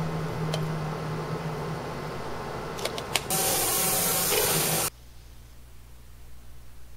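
A few sharp clicks, then a loud steady hiss lasting about a second and a half that cuts off abruptly.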